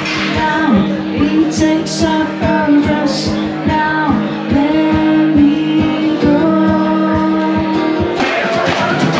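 A woman singing with a strummed acoustic guitar, a live solo performance. About eight seconds in, the music changes abruptly to a different passage.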